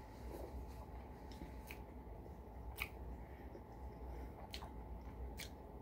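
Faint, scattered wet mouth clicks of someone chewing close to the microphone, about five over a few seconds, over a low steady hum.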